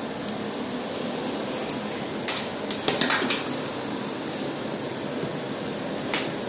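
A few sharp clicks and light knocks, a cluster about two to three seconds in and a single one near the end, over a steady background hiss.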